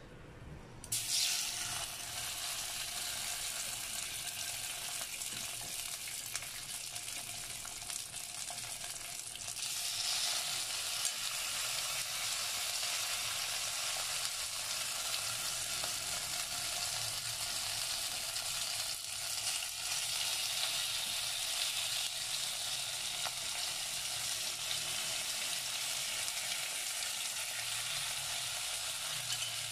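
Chicken wings sizzling and crackling in hot cooking oil. The sizzle starts suddenly about a second in as the first wing goes into the oil, and gets louder about ten seconds in as more wings are added.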